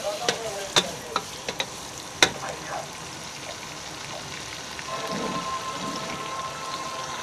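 Mutton liver sizzling as it fries in a pot. A ladle stirs it and knocks sharply against the pot several times in the first couple of seconds, loudest a little after two seconds in.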